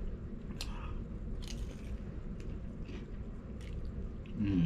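A man chewing and biting crispy fried chicken dipped in gravy: wet mouth sounds with scattered sharp clicks and crunches about once a second. A short low hum of his voice comes near the end.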